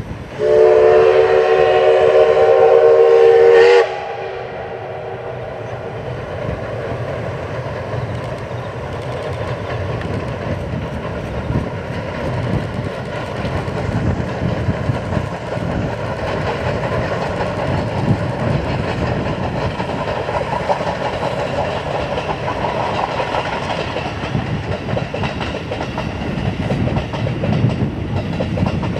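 Steam whistle of the D51 200 steam locomotive blown once for about three seconds, starting about half a second in and stopping abruptly. Then the locomotive and its train run by with a steady rumble that slowly grows louder.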